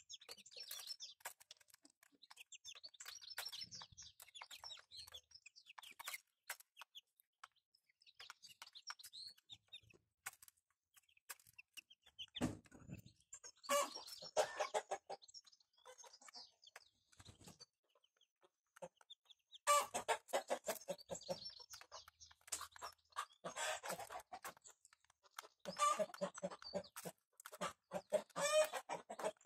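Bantam chickens clucking and calling while they feed, over many quick sharp taps of beaks pecking grain from a metal trough. The calls grow louder and more frequent in the second half.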